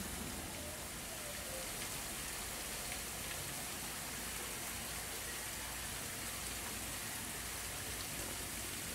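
Steady, even outdoor background hiss with a few faint ticks.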